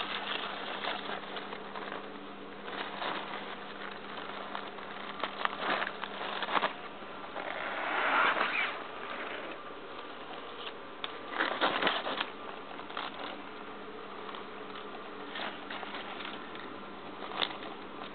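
Rustling and handling noise as a hand moves an artificial silk rose stem and the hand-held camera, with irregular crackles and a louder swell about eight seconds in and again near twelve seconds, over a steady low hum and hiss.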